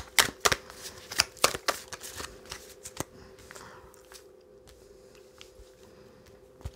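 A deck of oracle cards being shuffled by hand, with a run of sharp card snaps over the first three seconds, then quieter handling of the cards.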